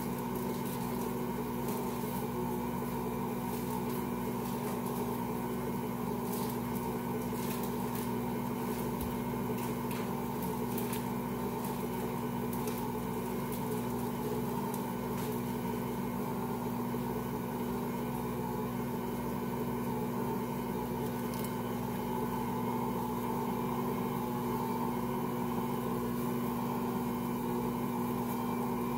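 Ankarsrum kitchen mixer running steadily with a constant hum, its motor turning the bowl as the roller kneads a large batch of bread dough.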